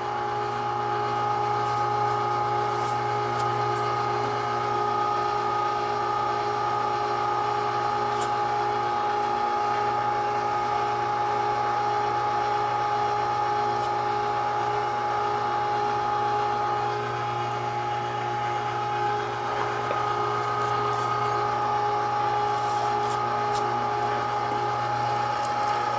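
Carnivore 1-horsepower electric meat grinder running steadily with a constant hum and whine while grinding pork.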